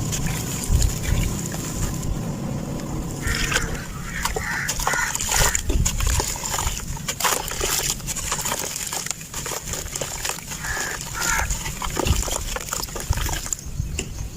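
Dry sand-cement chunks being crushed and crumbled, a dense run of crunchy crackles with a few squeaky scrapes and low thuds.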